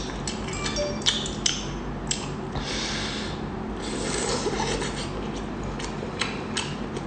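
Close-miked eating sounds of seafood: sharp wet smacks and clicks of chewing, with one longer slurp about two and a half seconds in.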